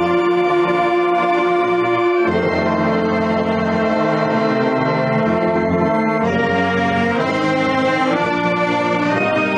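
Marching band brass section playing long sustained chords together, with the chord changing about two seconds in, again around six seconds, and once more near the end.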